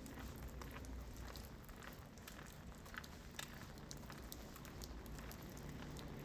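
Rain falling: a faint steady hiss with scattered, irregular drops ticking on a hard surface.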